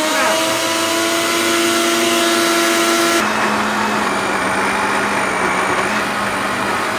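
HighOne countertop blender motor running at full speed, puréeing chunks of raw vegetables with a little water. About three seconds in its steady whine drops to a lower tone as the chunks break down into a smooth purée.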